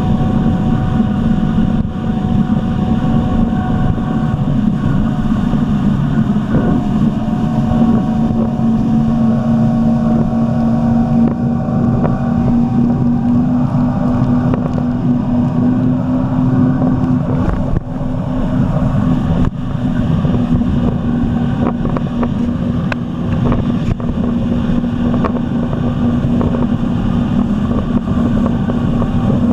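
Jet ski engine running steadily at cruising speed, its drone rising a little about seven seconds in and then holding, with wind rushing over the microphone.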